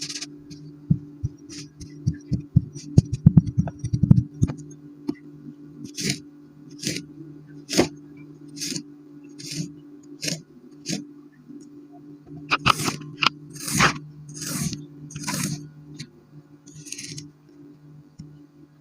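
A knife cutting through kinetic sand. Sharp clicks come in the first few seconds, then a string of short slicing strokes about once a second, with a few longer scraping cuts later on, all over a steady low hum.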